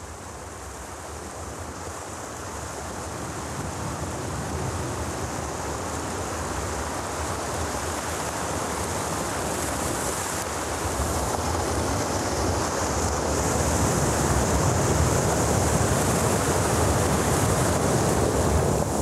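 Steady rush of surf washing over a shallow shore, with wind, slowly growing louder.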